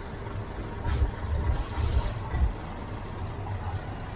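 Heavy truck diesel engine running low and steady as the truck manoeuvres at walking pace. About a second and a half in comes a short hiss of compressed air released from the air brakes, lasting well under a second.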